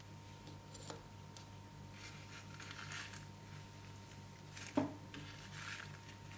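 Slime being worked by hand: soft, irregular squishing and crackling, with a sharp click a little under five seconds in.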